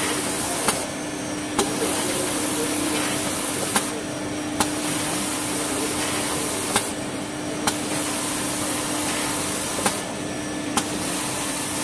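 Automatic tissue paper log saw machine running: a steady hum under a high hiss that cuts in and out about every three seconds, each change marked by a sharp click.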